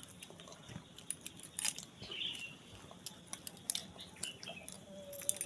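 Faint scattered clicks and crunches of baby macaques gnawing and chewing food, with a brief faint chirp about two seconds in.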